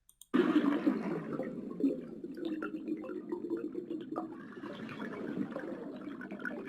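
Underwater sound recording: a muffled wash of water with scattered small clicks. It starts abruptly about a third of a second in.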